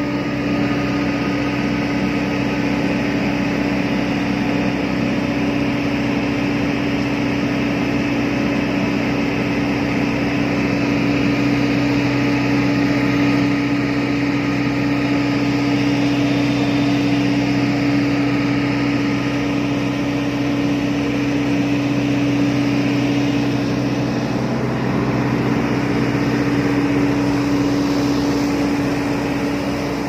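Volvo excavator's engine and hydraulics running an excavator-mounted vibratory hammer that drives steel sheet piles: a loud, steady mechanical hum with one strong held tone.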